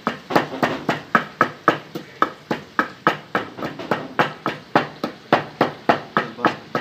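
Wooden pestle pounding green cardamom pods in a mortar, even strokes at about four a second.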